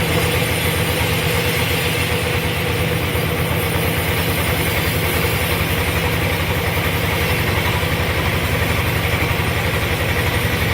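Sawmill engine running steadily with a fast, even firing beat and an unchanging pitch.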